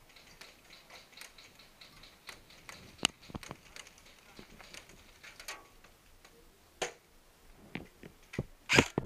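Scattered light ticks and clicks, then near the end a quick string of loud snaps as an airsoft rifle opens fire.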